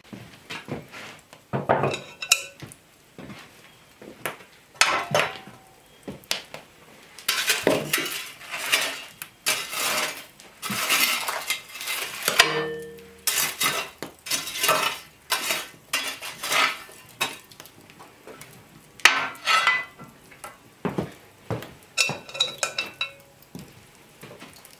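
Cast iron pot and iron hearth tools clanking and scraping irregularly as coals are raked in an open fireplace. Near the middle, one clank rings on briefly.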